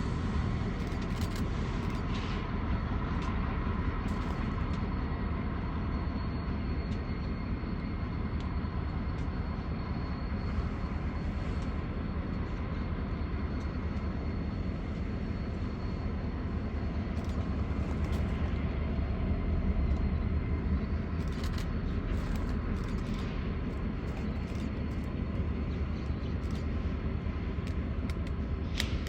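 Steady low rumble of a moving vehicle, swelling slightly about twenty seconds in.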